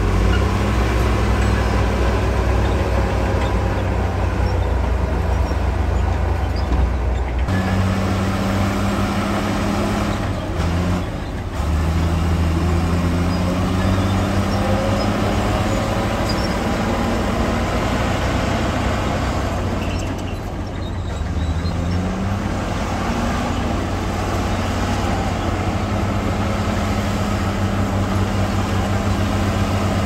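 A dump truck's diesel engine runs with a heavy, steady drone as it tips its bed. It then gives way to an old Komatsu bulldozer's diesel engine working as it pushes dirt, its pitch rising and falling repeatedly as the load changes.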